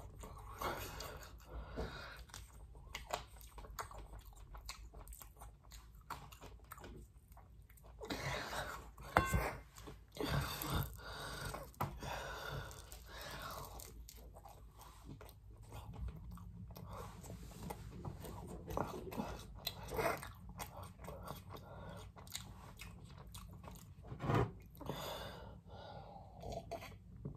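Close-up eating sounds: chewing and biting of fried chicken and pizza, with irregular crunches and mouth clicks.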